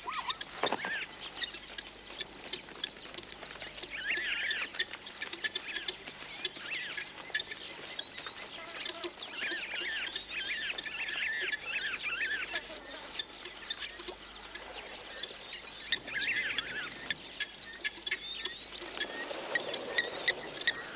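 Blacksmith plovers (blacksmith lapwings) calling over and over in quick, sharp metallic notes, the alarm of nesting birds mobbing an intruding zebra.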